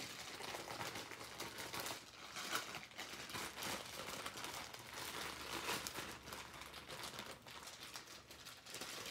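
Clear plastic bag crinkling faintly and irregularly as sticky turquoise slime is stretched and pulled out of it by hand.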